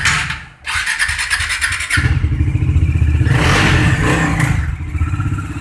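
Bajaj Dominar motorcycle's single-cylinder engine being electric-started: the starter cranks, pauses for a moment, cranks again, and the engine catches about two seconds in and keeps running.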